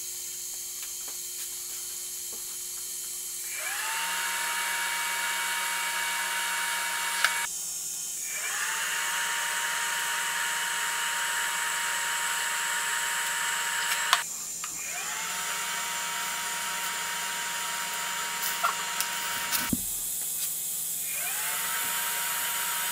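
Electric arc welder welding steel shock brackets onto a rear axle housing: a steady hiss of the arc with a whine that rises and then holds steady each time the arc is struck, several welds with short breaks between.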